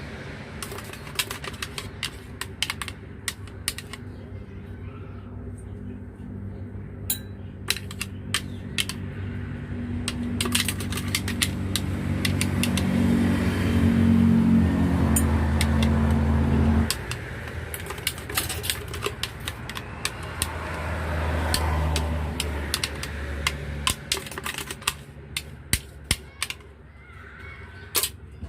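Rapid, irregular clicking and clattering, with a steady motor hum that swells, cuts off suddenly about 17 seconds in, and returns briefly a few seconds later.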